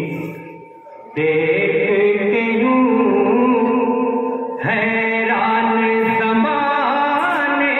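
A man's voice singing a mankabat, a devotional praise poem, in long held notes with wavering melismatic ornaments, amplified through a microphone and PA. The line breaks off briefly about a second in and picks up again.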